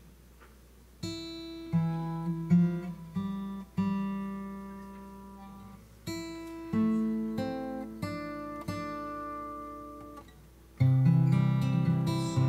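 Acoustic guitar playing a slow introduction, starting about a second in: picked notes and chords that each ring and fade away, giving way to louder, fuller strumming near the end.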